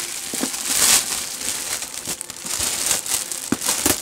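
Packaging bag on a parcel crinkling and tearing as it is pulled off: a continuous rustle with a few sharper crackles.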